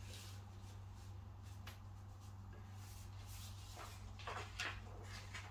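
Faint rustling and soft brushes of hands pressing a strip of non-woven wallpaper flat against a wall, a few of them a little louder near the end, over a low steady hum.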